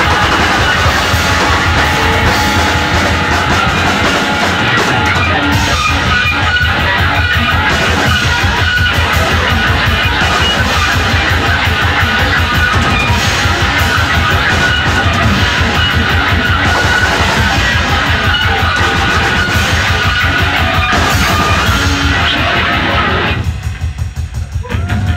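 A live noise-rock band playing loud, dense improvised music on electric guitars and drums. The noise thins out briefly near the end.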